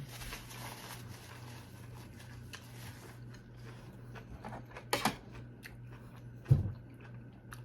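Quiet eating sounds at the table: a hiss over the first few seconds, a couple of clicks about five seconds in, and a sharp thump about six and a half seconds in, over a steady low hum.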